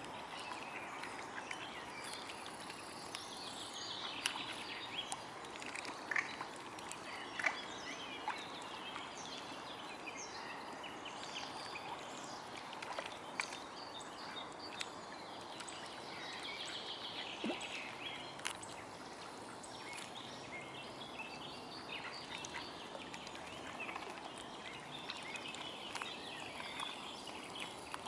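Steady outdoor background noise at the water with scattered small splashes and drips as mute swans feed with their heads under the surface, and faint high bird chirping now and then.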